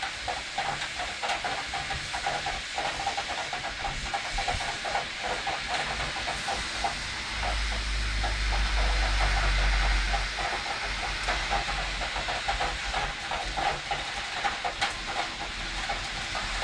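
Steady rain pouring down in a thunderstorm, with wind, heard through an open window, scattered with small ticks. A deep rumble swells for about three seconds near the middle.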